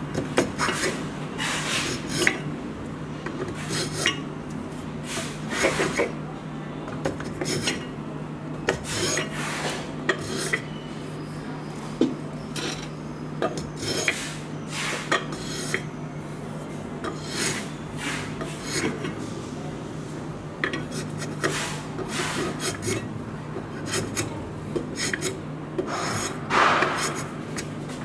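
Wooden hand plane shaving down a wooden knife handle held in a vise: repeated quick scraping strokes at an uneven pace. A steady low hum runs underneath.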